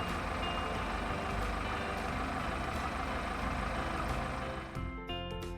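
Tractor engine running steadily, with faint background music under it; the engine stops near the end as the music comes forward.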